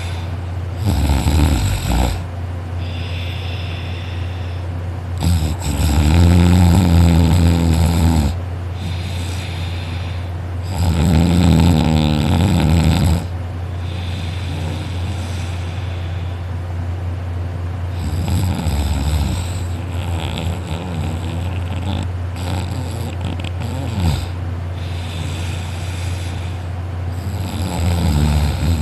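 A person snoring hard in deep sleep. Long, loud snores come about 5 and 11 seconds in, each lasting two to three seconds, with shorter, softer snores between, over a steady low hum.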